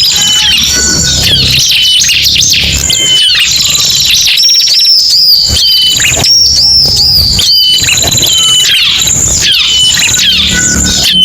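Ciblek and prenjak, small songbirds of the prinia group, calling and singing in a dense, loud, continuous mix of rapid high chirps and trills: a recorded combination of calls played as a lure to draw birds in for trapping.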